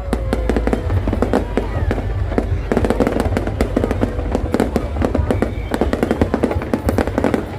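Fireworks display: dense crackling from many small bursts going off in quick succession, over a low rumble.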